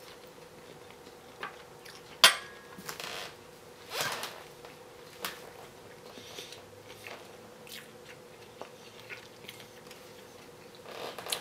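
A metal fork set down onto a ceramic plate with one sharp clink about two seconds in, then soft chewing of a bite of steak and a few faint clicks of cutlery.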